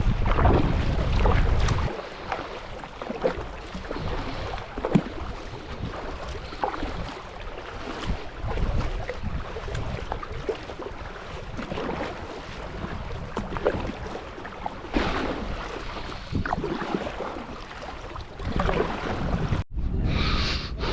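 Kayak paddles dipping and splashing in river water, with scattered small splashes and drips, and wind buffeting the microphone for the first couple of seconds. The sound drops out briefly near the end.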